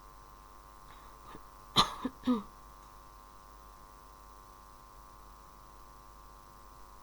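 A person gives a short cough, three quick bursts about two seconds in, over a faint steady electrical hum.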